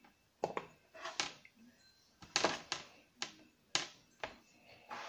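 Chef's knife cutting potatoes into wedges on a plastic cutting board: a series of about nine sharp, irregular knocks as the blade goes through the potato onto the board.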